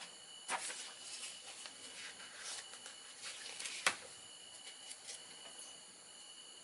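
Faint handling of small plastic and resin model-kit parts: light rustling and small clicks, with one sharper click about four seconds in.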